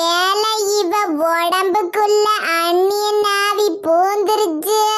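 A high, child-like voice singing a slow tune in long held notes that gently rise and fall, like a lullaby.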